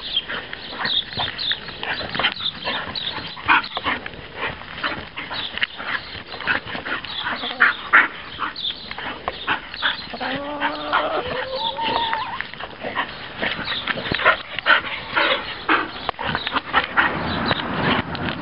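Two dogs play-fighting, giving a rapid run of short, sharp vocal sounds, with a few longer rising whines about ten seconds in.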